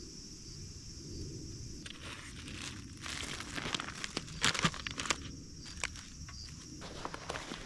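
Plastic food pouch crinkling and rustling in the hands, in scattered crackles from about two seconds in, loudest around the middle. A steady high-pitched hum runs underneath.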